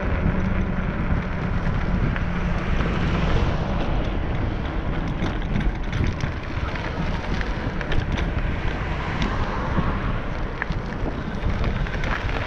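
Steady wind buffeting the microphone of a moving action camera, with a low rumble of travel along the road, and a few small clicks near the end.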